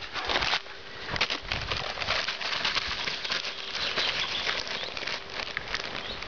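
A large paper bag crinkling and rustling in a dense run of crackles as a German Shorthaired Pointer rolls on it and chews it.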